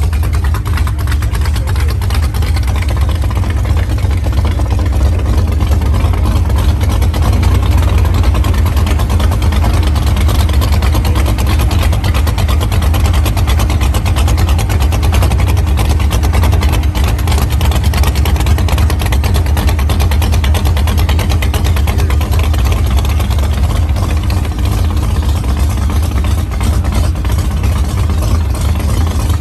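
Dodge Dart's engine running steadily with a loud, popping exhaust.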